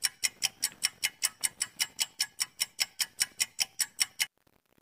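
Clock-ticking sound effect of a quiz countdown timer: rapid, even ticks, about five a second, stopping shortly before the end.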